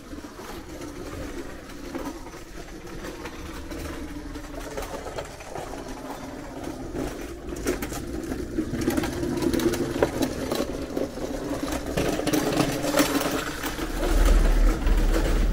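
Sewing machine running with a rapid, steady chatter, growing louder and then fading. A loud low rumble comes near the end.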